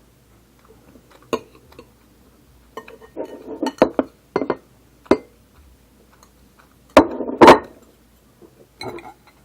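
A spoon clinking and scraping against a dish while eating: scattered sharp clinks, with the loudest pair of knocks a little past two-thirds of the way in.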